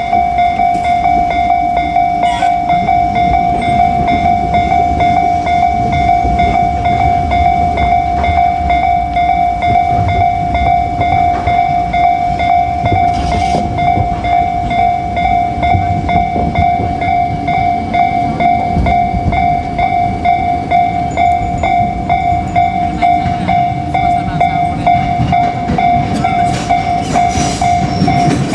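JR Kyushu 787-series electric limited express train running past a level crossing, its wheels rumbling and clacking on the rails. The crossing's warning bell keeps ringing at one steady pitch over the train noise.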